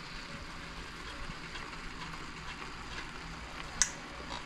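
A pan of frying vegetables sizzling with a steady hiss. One sharp tap near the end.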